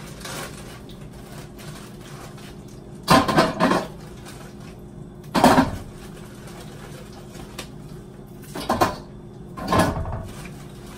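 Crab legs handled out of a plastic bag and dropped into a large metal stockpot: four short bursts of knocking and bag rustling a few seconds apart, over a steady low hum.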